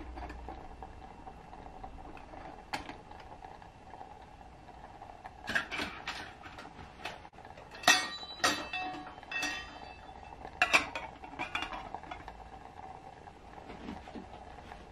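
Stainless-steel cookware clinking and ringing as a metal lid is handled and set onto a pot on a small alcohol stove: a series of sharp clinks from about five to twelve seconds in.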